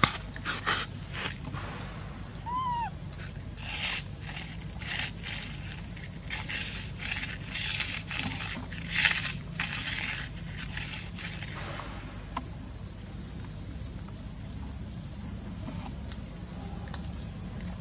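Long-tailed macaques handling and eating food on dry ground: irregular rustles and crunches over the first twelve seconds, thinning out after that, with one short high squeak about two and a half seconds in.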